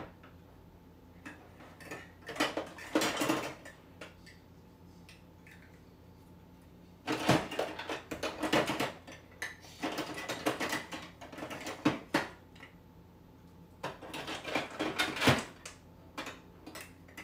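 Plastic marble-run pieces clattering as hands rummage through a plastic storage bin, in four bouts of rattling with short pauses between.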